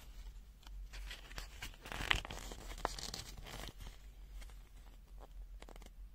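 Packaging being handled and unwrapped: crinkling and rustling with a few small clicks, busiest in the middle and easing off near the end.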